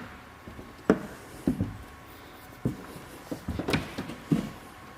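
A few scattered knocks and thuds at irregular intervals, the sharpest about a second in.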